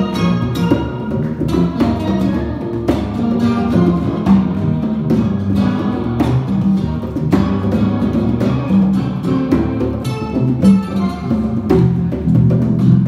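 Live instrumental band: acoustic guitar and electric bass playing a tune over conga drums and other hand percussion, with frequent sharp drum strikes.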